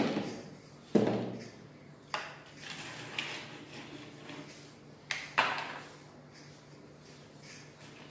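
Small plastic toy cars and a clear plastic packaging tray knocking on a tabletop as they are handled: five or so sharp knocks, the loudest at the start and about a second in, with light plastic crackling between.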